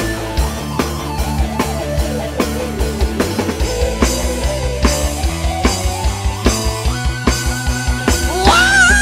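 A dangdut koplo band plays an instrumental passage. The drum kit beats steadily over bass and a melodic lead, with a quickening run of low drum hits in the middle and the lead line sliding up sharply near the end.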